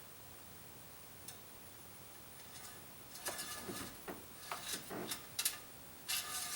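Clusters of light clicks, rattles and clinks from small parts being handled under a truck's hood during an oil change, starting about three seconds in.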